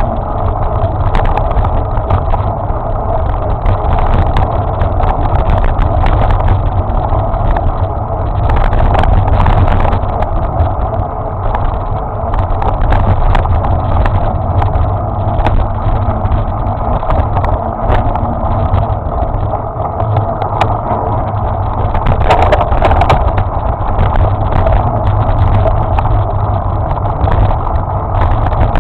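Continuous rumbling and rattling ride noise from a camera mounted on a vehicle moving along a bumpy dirt forest trail, loud and steady with small swells.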